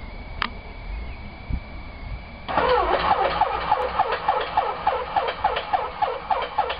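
A 1944 Auster V's Lycoming flat-four aero engine catching abruptly about two and a half seconds in on its first run after restoration, then running at a slow idle with a regular beat of about four pulses a second.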